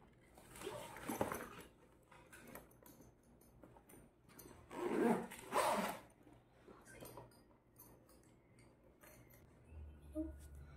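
Zippers on a school backpack being pulled, two raspy runs: one about a second in and a louder one about five seconds in, with light rustling and ticks from the bag being handled.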